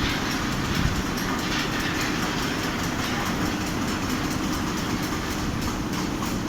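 Large fabric spreading machine running with a steady mechanical rumble and rattle.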